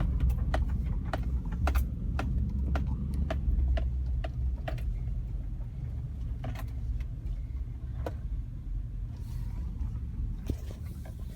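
Vehicle running with a steady low road and engine rumble, many small sharp clicks and rattles through it. The rumble eases off over the last few seconds.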